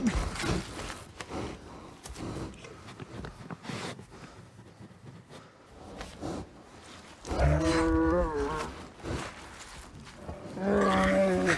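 Grizzly bear attack: snuffling, huffing breaths and scuffles, then two long moaning cries with a wavering pitch, one about seven seconds in and one near the end.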